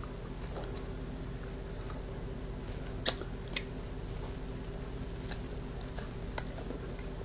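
Mouth sounds of hard sour candies being sucked and chewed, with a few sharp clicks and smacks, over a steady low background hum.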